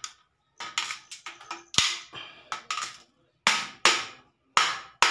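Galvanized steel furring channel being struck at its overlapped joint with the jaws of a pair of pliers, pressing the seam so the two pieces lock together without rivets. A few light uneven clicks, one loud metallic hit about two seconds in, then a string of sharp strikes a little under half a second apart, each with a short ring.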